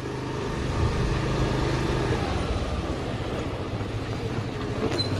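Motorbike engine running steadily at low speed, with road and wind noise.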